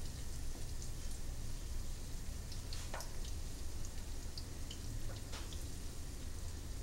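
Spinach fritters frying in hot oil in a pan: a steady sizzle with scattered small pops and crackles. Louder clicks about three and five seconds in come as a spatula and fork turn one fritter over.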